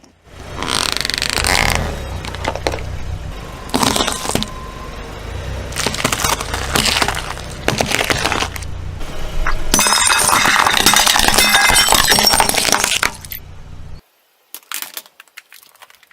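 A car's tyre rolling over and crushing objects: several bursts of crunching and breaking, with clinking, over a low engine hum. The hum stops about 14 seconds in, leaving a few faint clicks.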